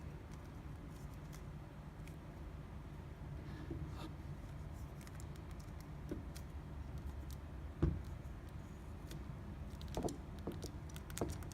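Light clicks and taps of a plastic figure being handled and turned by hand, over a steady low hum. There is one sharper knock about eight seconds in and a run of small clicks near the end.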